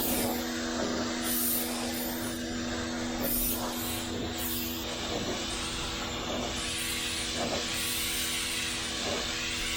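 Pressure washer running, its motor or engine humming steadily under the hiss of the high-pressure water jet blasting a concrete sidewalk. The spray noise swells and fades every second or so as the wand sweeps back and forth.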